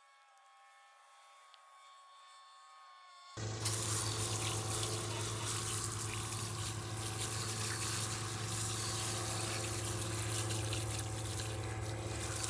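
Water spraying steadily onto a degreased engine block, with a steady low hum beneath it. It starts suddenly about three seconds in, after a faint stretch with a few thin steady tones.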